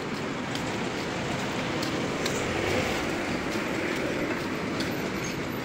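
Steady street traffic noise, an even rumble and hiss that swells slightly in the middle, with a few faint ticks.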